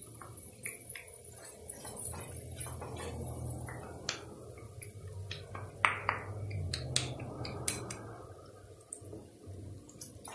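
Wooden spatula scraping tomato sauce out of a glass jar into a frying pan and stirring it through the chicken and vegetables, with scattered sharp knocks of the spatula against the jar and pan, the loudest about six seconds in. A low steady hum runs underneath.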